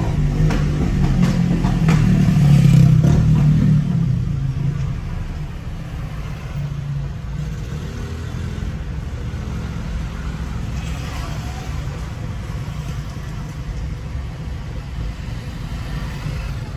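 Engine and road noise heard from inside a moving car: a low hum that swells for the first few seconds, then settles to a steady rumble.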